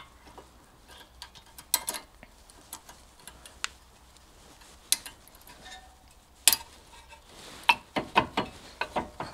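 Scattered, irregular metallic clicks and clinks of hand tools and steel brake parts being handled during a brake job. The loudest click comes about six and a half seconds in, with a quick run of clicks near the end.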